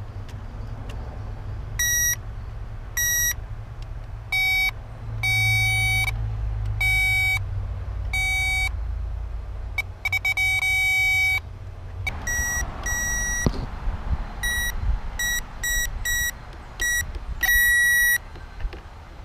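Multimeter continuity tester beeping in bursts of uneven length, from short blips to held tones of about a second, as its probes are touched across car fuses; a steady beep means the fuse is good. A low rumble runs underneath.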